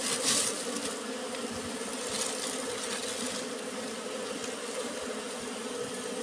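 A colony of dwarf honeybees buzzing steadily around their exposed comb, a continuous even hum of many wings.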